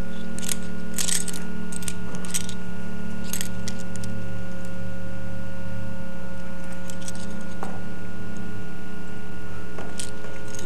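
Metal climbing gear on a climber's harness clinking and jingling in short irregular clicks as he moves across a rock roof, over a steady low hum.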